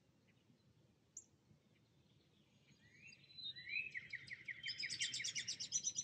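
A wild songbird singing a fast trill of short, evenly repeated high chirps, starting about halfway through, after a single short chirp about a second in. The bird song is faint over a low outdoor background noise.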